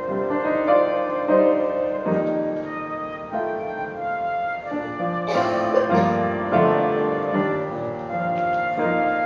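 Instrumental music led by piano, with notes held and changing at a slow, steady pace.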